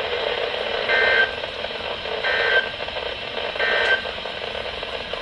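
Three short buzzy data bursts of an Emergency Alert System SAME signal over weather radio, about a second and a third apart: the end-of-message code that closes a warning broadcast. A steady radio hiss runs underneath.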